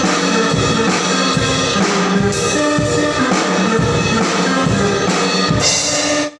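Band music with drum kit and brass playing a steady beat, cutting off abruptly near the end.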